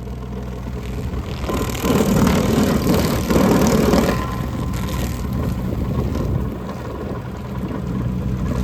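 Kioti CK2610 compact tractor's engine running a PTO stump grinder, steady under load, with louder rough grinding surges from about one and a half to four seconds in as the cutter wheel bites into a hardwood stump.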